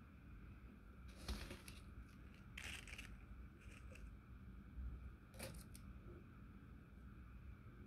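Faint handling sounds of fly tying at the vise: four short snipping and rustling noises a second or so apart, over quiet room tone.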